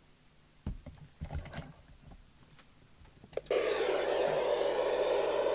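A few handling knocks, then a click about three and a half seconds in as the Binatone Longranger 6 handheld CB radio comes on, followed by a steady loud static hiss from its speaker: the receiver with no signal coming in.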